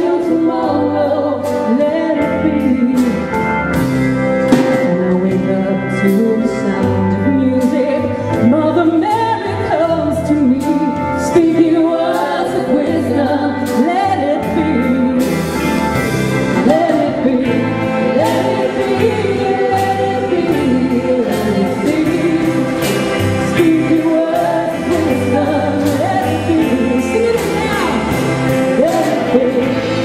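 Female singers with a choir and a live band of drums and electric guitar, performing a song in a gospel style, with frequent drum and cymbal hits.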